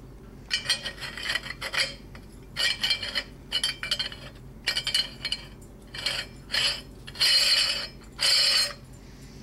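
Stainless steel meat grinder parts clinking and scraping together as they are handled and fitted, a string of metal-on-metal knocks with short rings, two longer ringing scrapes near the end.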